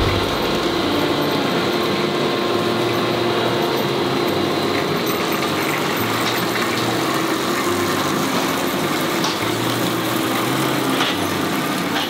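Tractor pulling a potato windrower through a field, its engine and digging machinery running together as one steady mechanical noise.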